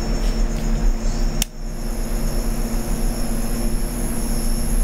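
NATPLUS rechargeable electric nail drill (e-file) switched on with a click about a second and a half in, then running with a steady high whine over a steady low hum.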